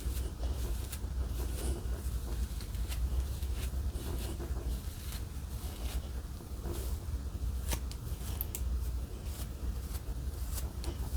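Scattered light clicks and short rustles, like small objects being handled, over a steady low hum.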